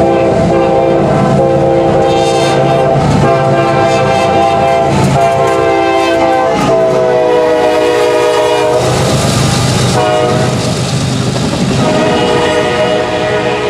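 Nathan K5LA five-chime air horn on a CSX ES44AH locomotive blowing a series of loud blasts, the last one held long, in a long-long-short-long pattern. Around ten seconds in, the rush of the passing locomotive and train swells, and the horn chord then sounds slightly lower as the locomotive goes by.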